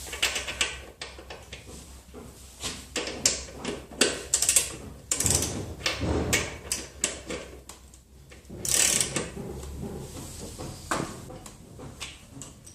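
Hand tools and metal motorcycle parts being worked and handled: irregular clicks, knocks and scrapes, with a couple of longer scraping sounds near the middle.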